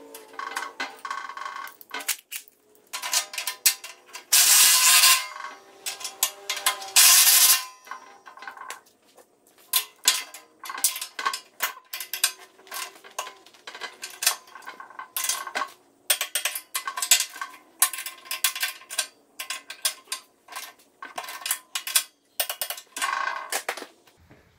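Wrench turning and tightening a flange bolt that holds a steel bolt-on clevis mount to a tractor loader bucket: a busy run of metallic clicks and scrapes, with two louder rasping stretches a few seconds in.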